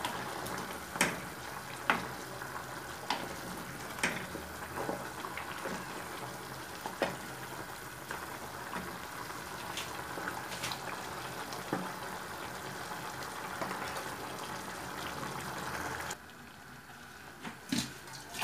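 A pot of meat soup simmering with a steady bubbling hiss while a wooden spoon stirs it, knocking against the pot roughly once a second. The bubbling cuts off suddenly about two seconds before the end.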